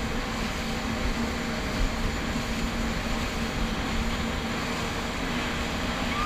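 A jet ski running steadily at speed: a constant engine drone mixed with wind on the microphone and the rush of water under the hull.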